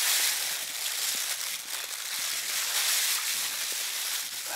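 Plastic bag rustling and crinkling continuously as hands handle it.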